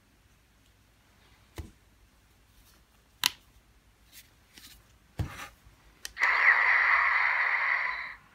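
Plastic knocks and clicks as an Ultraman Mebius BGM Heroes BIG figure is handled and its button pressed, then its built-in speaker plays a loud electronic sound effect for about two seconds before cutting off.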